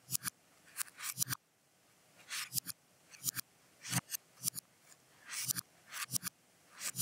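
About a dozen short, irregularly spaced bursts of quick clicking and scratching, one every half second to a second.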